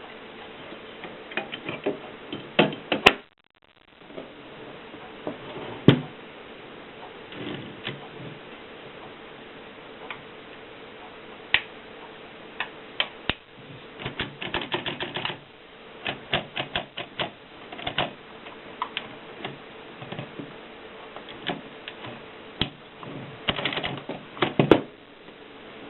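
Japy Script manual typewriter being typed on: irregular bursts of key clacks with short pauses between them and a few louder single strikes. The sound cuts out briefly about three seconds in.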